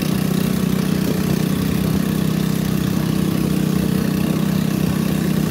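Long-tail boat's stock 13 hp four-stroke engine running steadily under way, heard from the bow.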